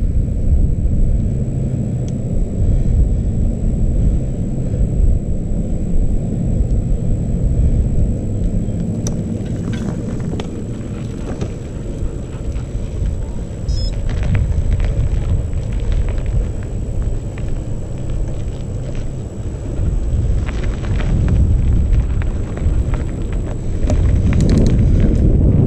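Wind buffeting the microphone of a camera riding on a mountain bike going downhill, with the tyres rumbling over a rough trail. From about nine seconds in come scattered clicks and rattles of the bike and loose stones, and the rumble gets louder near the end.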